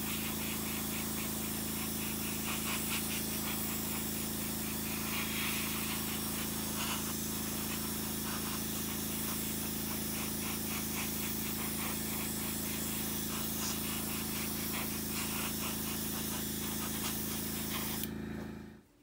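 Flat coat (matte clear varnish) sprayed onto a plastic model part: a steady hiss of spray over an even motor hum. Both stop abruptly about a second before the end.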